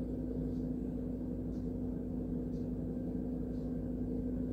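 A steady low hum, with a faint soft tick about once a second.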